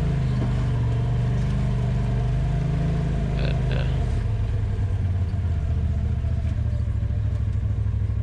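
Side-by-side UTV engine running on a trail ride, holding steady and then dropping to a lower pitch about four seconds in as the throttle eases off. Two brief high chirps come through about three and a half seconds in.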